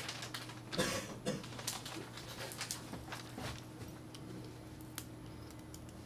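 Faint scattered clicks and knocks of handling noise, with a short rustle about a second in.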